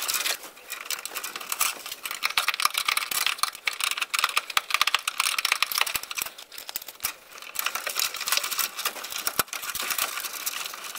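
Electrical cable being handled and worked into a metal breaker panel: a dense, irregular run of small clicks, crinkles and rattles of wire against the box.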